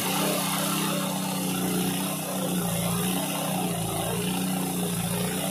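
Portable abrasive rail-cutting saw with its motor running steadily under load as the disc grinds through a steel rail, a continuous droning hum.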